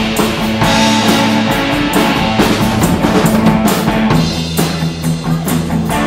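Rock band playing: a drum kit keeps a steady beat on snare and bass drum under held guitar chords, which change about four seconds in.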